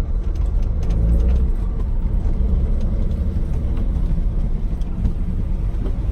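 Datsun 260Z's straight-six engine on triple 44 Mikuni carburettors, running with a steady deep rumble as the car sets off.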